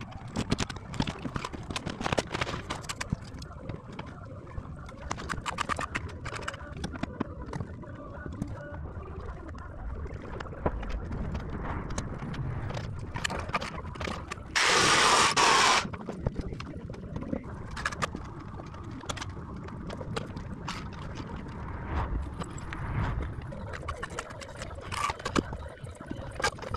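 Masonry work with clay blocks and mortar: scattered knocks and scrapes of blocks and trowel, with a loud hissing burst lasting about a second halfway through.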